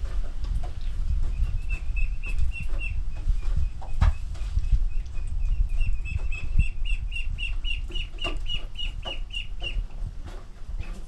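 Poultry in a coop: young birds peeping in a long, even run of high notes, about three a second, that starts a second or so in and stops near the end. Scattered short pecking and scratching clicks and a steady low rumble lie underneath.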